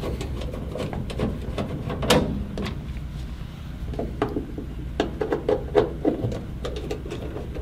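Screwdriver backing screws out of a boiler's plastic housing: scattered small clicks and knocks of the tool against screw and plastic. There is a louder knock about two seconds in and a quick run of clicks around five to six seconds in.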